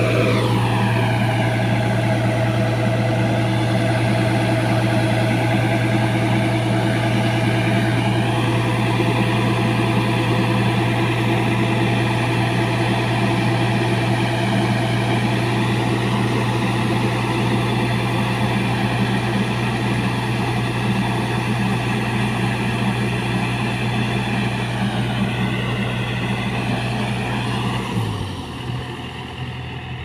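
Yanmar combine harvester's diesel engine running steadily at working speed while the unloading auger discharges threshed rice grain. About two seconds before the end the engine note drops in pitch and gets quieter as the unloading stops.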